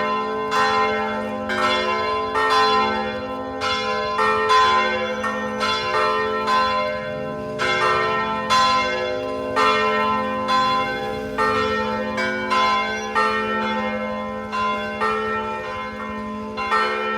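Church bells pealing: several bells of different pitches struck one after another, about one strike a second, each note ringing on and overlapping the next over a steady low hum.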